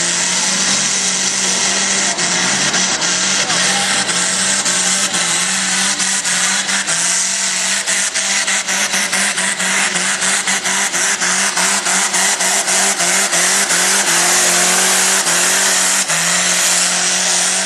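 Hot stock pulling tractor's BMW 535i straight-six engine running at steady high revs under full load while it drags the weight-transfer sled, with a rapid scatter of sharp clicks over it.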